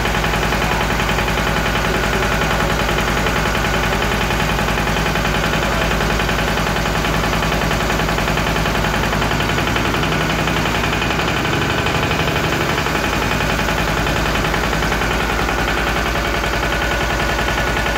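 Compact tractor's engine running steadily, driving a tractor-mounted HTP plunger sprayer pump that is spraying, with a rapid, even knocking beat.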